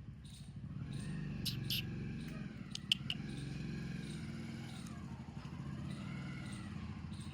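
A dog whining in two long calls that rise and fall in pitch, over a low steady rumble, with a few sharp clicks in the first half.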